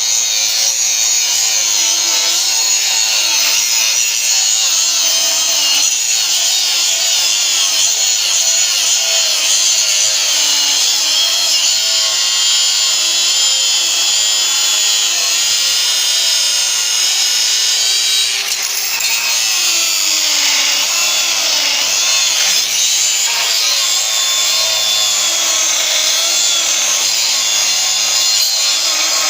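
DeWalt DCG414 cordless 125 mm angle grinder grinding weld seams on steel, running continuously with its pitch wavering as the disc bears on the metal. It eases off briefly about two-thirds of the way through.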